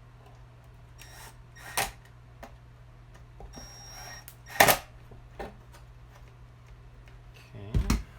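Handling noise from reassembling a tile-saw motor: a few sharp clicks and clunks of parts and tools being picked up and set down, the loudest about halfway through and another near the end, over a steady low hum.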